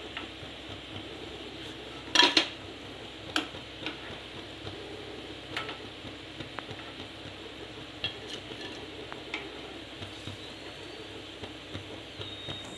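Samosas deep-frying in hot oil with a steady sizzle, and a steel spoon clinking now and then as they are lifted out one at a time. The loudest clink comes about two seconds in.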